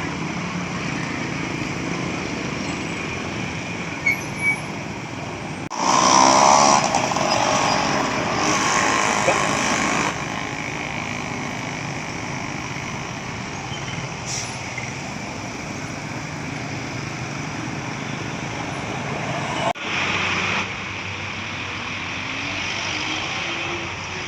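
Roadside traffic with large buses passing: a steady road noise, with a much louder stretch lasting about four seconds from about six seconds in, and a brief louder moment near the end.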